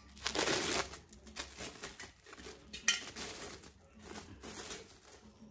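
Wrapping rustling and crinkling in irregular bursts as a silver water pot (chombu) is unwrapped by hand, with the sound of the metal pot being handled.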